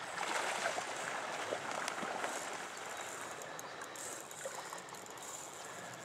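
Shallow river current running and rippling in a steady rush, with a few faint ticks.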